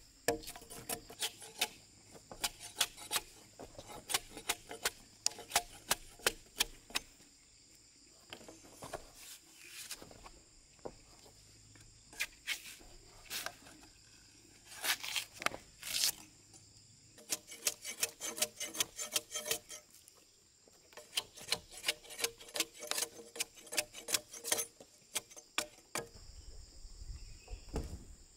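Machete blade scraping and chopping bark off freshly felled logs, in quick runs of sharp strokes with short pauses between runs; the strokes stop shortly before the end. Insects buzz steadily in the background.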